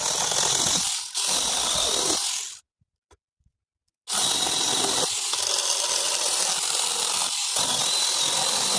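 Handheld power cutting tool running at full speed in three runs, with short stops about a second in and between roughly two and a half and four seconds, as it cuts through bush branches.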